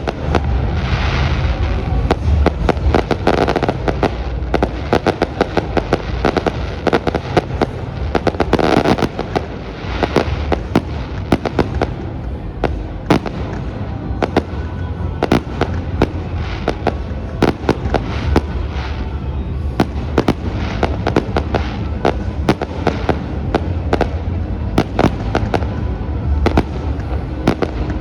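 Fireworks display: a dense, continuous run of sharp cracks and bangs going off in quick succession, with music playing underneath.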